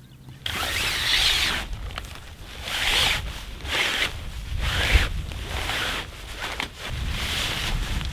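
A bendable rod being pushed through the fabric sleeve of a late-1980s kite, the rod rubbing and scraping against the sail cloth in a series of strokes, roughly one a second.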